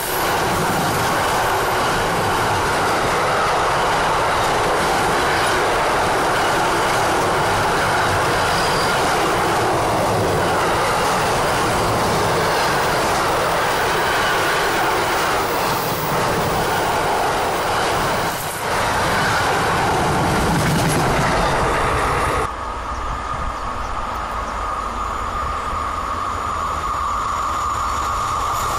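Long freight train of enclosed double-deck car-carrier wagons rolling past close by, with steady loud wheel-on-rail rumble and clickety-clack. About three-quarters through it cuts off suddenly to a quieter scene: the steady hum of another freight train approaching in the distance.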